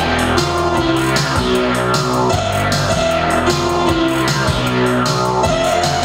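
Live band music: electric guitar over synthesizer notes and chords, with a steady beat.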